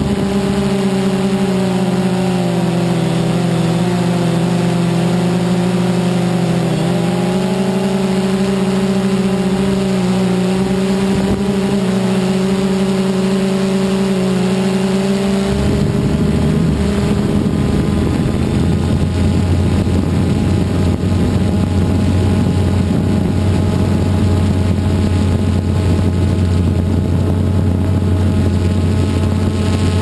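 DJI Phantom 2 quadcopter's motors and propellers humming steadily in flight, heard through a camera carried on the drone itself. The pitch wavers a little, and about halfway through the tone changes as the motor speeds shift.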